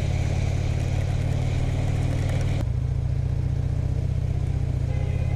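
2009 Harley-Davidson Fat Bob's Twin Cam 96 V-twin engine running steadily, with a steady hiss of wind and wet road over it.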